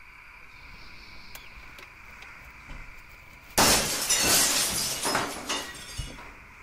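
Glass being smashed: after a faint steady hum with a few small clicks, a sudden loud crash of breaking glass about halfway through, followed by about two seconds of shards falling and tinkling, then a single low thump near the end.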